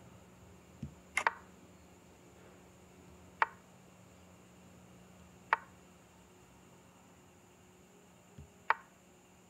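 Chess app move sound effects: four short, sharp clicks about two seconds apart, each marking a piece being played on the digital board. The first is a quick double click.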